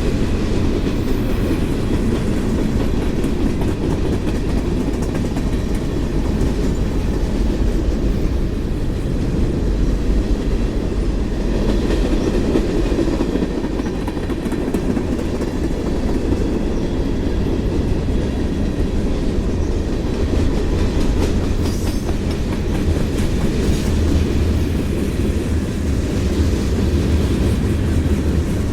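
Freight cars of a CSX mixed manifest train rolling past steadily on the rails.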